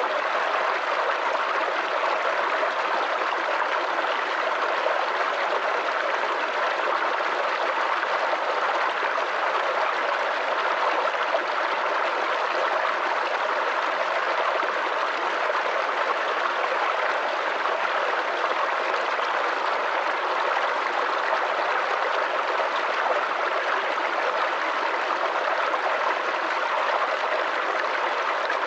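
A small brook babbling and gurgling over stones in a steady, unbroken rush of water.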